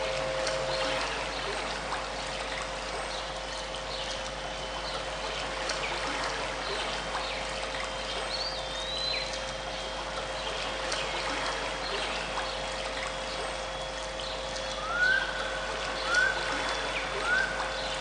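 Steady flowing-water sound of a stream, with short chirps scattered through it and steady pure tones held underneath, one low and one high. Near the end, four short rising calls come about a second apart.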